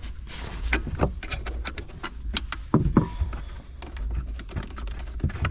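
Irregular metallic clicks and clinks of a 10 mm wrench working the battery terminal nut to disconnect the car battery cable, with a pair of louder knocks a little under three seconds in.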